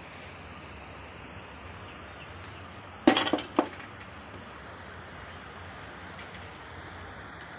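A short burst of metallic clinking and knocking about three seconds in, lasting about half a second, as a car alternator is moved and knocked against the workbench, followed by a few faint ticks.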